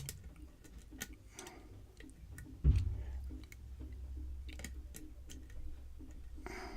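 Light, irregular clicks of a lock pick working the pins of a Schlage pin-tumbler lock under tension during single-pin picking, with a dull thump about two and a half seconds in followed by a low rumble.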